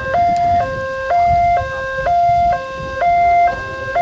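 Railway level-crossing warning alarm sounding at its fast tempo: an electronic two-tone signal alternating steadily between a lower and a higher note about twice a second, warning that a train is approaching and the barriers are closing.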